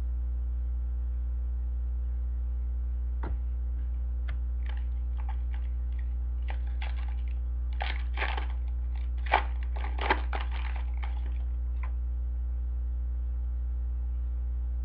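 Steady electrical hum, with a scatter of short crinkles and rustles of a foil trading-card pack being torn open and its cards handled, between about three and twelve seconds in, loudest near the end of that stretch.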